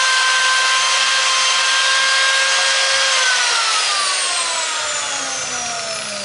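A rebuilt Ferm 125 angle grinder running at full speed with no disc fitted, its gearbox freshly packed with grease. It is switched off about three seconds in and its whine falls steadily as it spins down.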